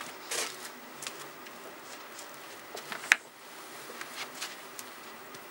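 Scattered light clicks and brief rustles of handling at a desk, with one sharper click about three seconds in.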